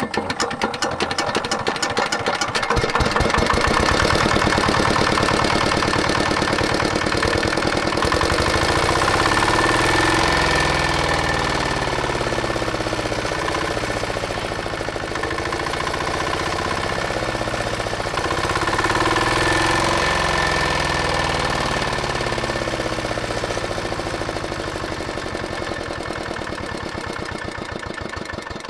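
Single-cylinder diesel engine of a walk-behind tractor, just started and running after repair, its speed swinging up and down a couple of times and winding down near the end.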